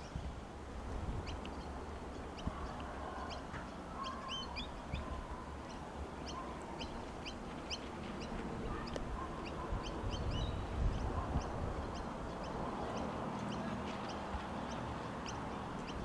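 Wind rumbling on the microphone, with many short, high bird chirps scattered irregularly throughout.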